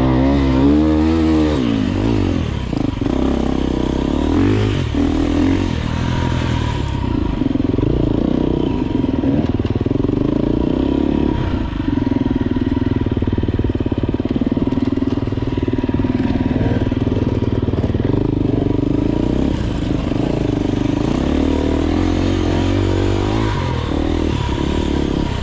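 Enduro dirt bike engine under way off-road, its pitch climbing and dropping with the throttle: sharp revs in the first couple of seconds, then steadier running with smaller rises and falls.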